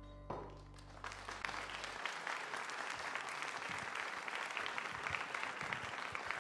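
Audience applauding, rising about a second in as the last held piano chord of the music dies away.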